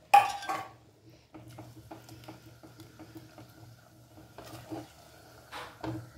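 Silicone spatula stirring tomato-onion purée into thick gravy in a steel pressure cooker: a loud clatter right at the start, then repeated soft scrapes and taps against the pot, a few louder strokes near the end.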